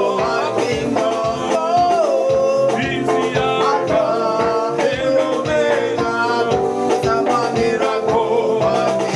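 Upbeat music with singing over a steady beat, in the manner of a gospel praise song.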